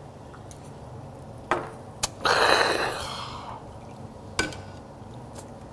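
Sharp clicks of a shot glass and tableware, then about halfway in a loud breathy burst of about a second, a strong breath out after a shot of kaoliang liquor; another sharp click follows near the end, as lamb is pulled off a metal skewer.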